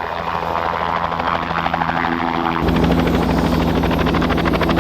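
Helicopter running close by, its rotor beating in a fast, even chop over a steady turbine whine. It grows louder a little past halfway through.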